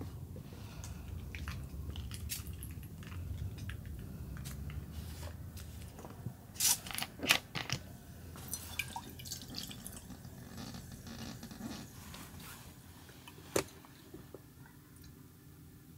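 Plastic makgeolli bottle handled with a cluster of sharp clicks and crackles, then rice wine poured into a stainless steel tumbler for a few seconds, over a low steady hum. A single sharp knock comes near the end.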